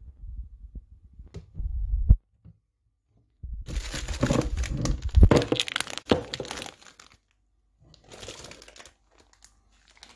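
Plastic bags and packaging rustling and crinkling as they are handled, loudest from about three to seven seconds in, with fainter rustles near the end. A low thumping rumble comes first.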